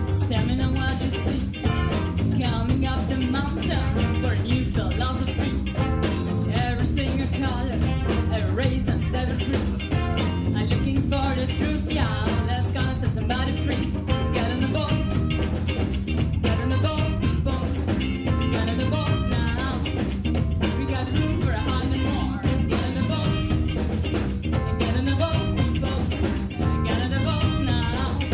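A big band with a horn section playing a song over a drum kit's steady beat.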